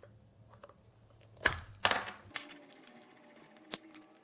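Small plastic clicks and snaps with light rustling as a small plastic vending-machine figurine and its packaging are handled, with two sharp snaps about a second and a half and two seconds in and another near the end.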